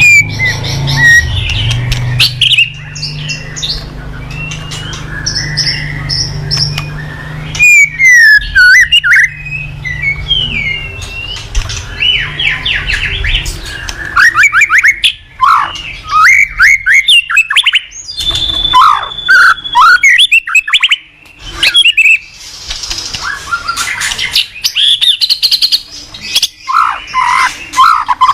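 White-rumped shama (murai batu) singing a long, varied song of loud whistled phrases, with sliding notes and rapid runs of repeated notes.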